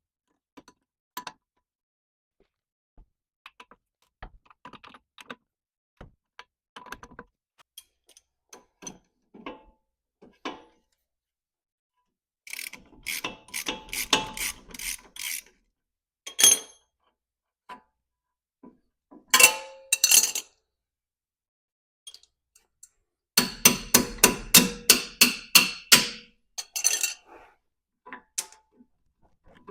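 Socket ratchet clicking in quick runs while a 21 mm nut is backed off a Jeep Wrangler TJ lower control arm bolt, with scattered light clinks of tools in between. The loudest run of rapid clicks comes in the last few seconds.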